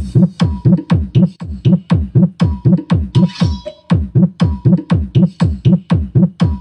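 Electronic dance remix used as a sound check, driven by a heavy kick drum at about four beats a second, each thump dropping in pitch. A thin steady high tone sounds over parts of it, and the beat briefly breaks just before the middle.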